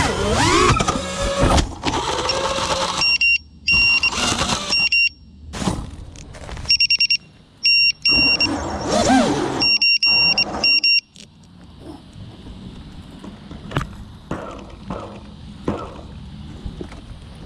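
Brushless motors of a 5-inch FPV quadcopter (iFlight Xing 2450kv) whining and rising and falling in pitch, with groups of short high electronic beeps, one motor spinning slower than the rest as its ESC fails. About eleven seconds in the motors cut out, leaving faint hiss and a few handling clicks.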